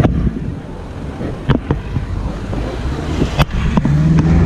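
Four-wheel drive climbing a soft-sand track, heard through wind buffeting a bonnet-mounted camera: a low engine rumble with a few sharp knocks. Near the end the engine note comes up and rises as more throttle is given.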